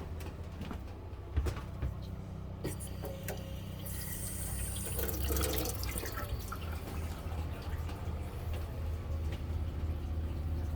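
Water running from a tap turned on to draw through a Fogatti tankless propane RV water heater; the flow is what makes the heater start automatically. A few clicks and a knock come in the first few seconds, over a steady low hum.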